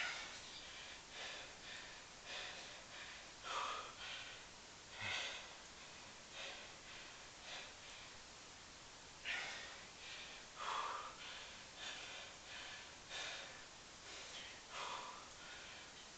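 A man breathing hard through nose and mouth during a long set of one-leg squats: short, noisy breaths one to two a second, some louder than others, with a short pause about halfway through.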